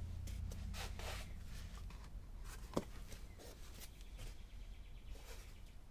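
Hands rubbing and pressing down on a cloth-covered hardcover book on a board, making faint scattered brushing and scratching sounds, with one sharp click about halfway through; the freshly pasted-down cover is being smoothed shut. A low steady hum runs underneath.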